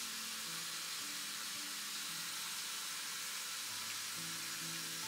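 Bathroom sink faucet running in a steady stream of tap water while the face is washed.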